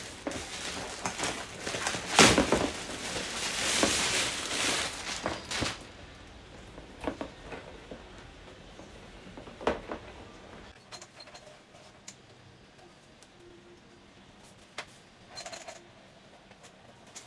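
Packaging being handled and opened: several seconds of rustling and crinkling, then scattered light knocks and clicks as small items are picked up and set down.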